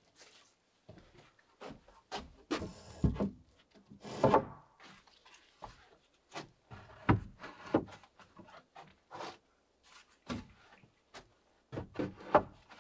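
Irregular knocks and scraping on wood from hands-on work at a wooden cabin, with longer scrapes about two to four seconds in and the sharpest knocks near the end.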